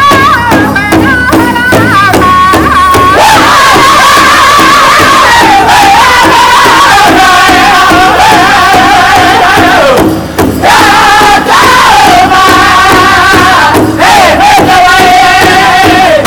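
Powwow drum group singing together in high, strained voices while beating a large hide-covered powwow drum in a steady rhythm with drumsticks. Each sung phrase starts high and steps down in pitch.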